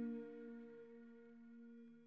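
Background film-score music: a sustained, ringing ambient chord fading away.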